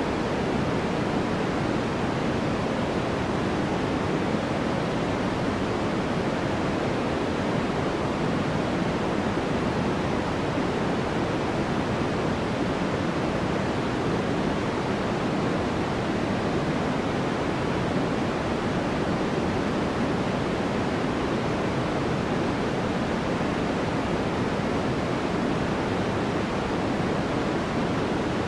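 Steady white noise for sleep: an even, unchanging hiss with most of its weight in the lower-middle range, more like a soft rush than a bright hiss.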